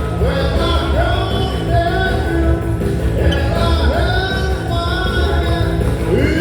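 Loud live band music with a singer over a heavy, steady bass beat.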